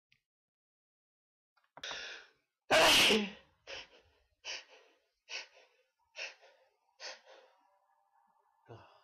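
A person draws a sharp breath in, then sneezes once, loudly, followed by a run of five short breathy huffs less than a second apart, fading, and a brief low voiced sound near the end.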